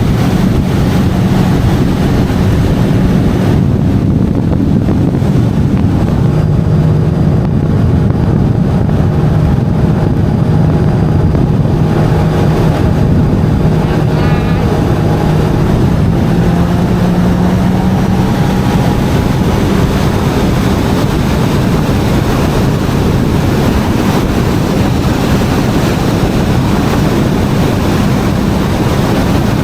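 Jet ski engine running under way, its pitch drifting a little lower and higher, with heavy wind noise buffeting the microphone.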